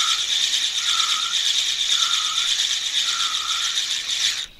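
Spinning reel being cranked steadily to wind in a hooked small bream, its gears whirring with a slight pulse about once a second, one per turn of the handle. The winding stops abruptly near the end.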